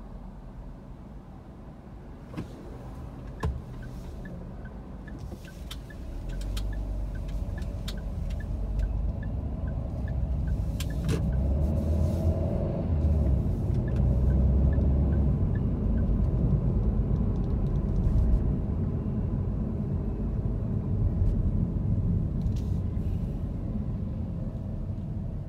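Inside a car pulling away from a stop and driving in city traffic: low engine and road rumble that grows louder from about six seconds in. A light, regular ticking runs through the middle of it at about two ticks a second.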